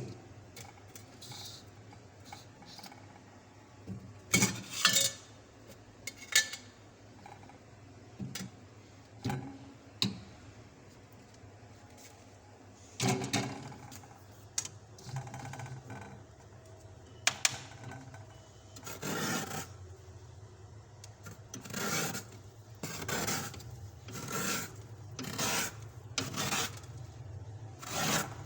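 Frost being scraped off the inside of a fridge freezer, in short rasping strokes. They come a few seconds apart at first, then settle into about one stroke a second in the last third.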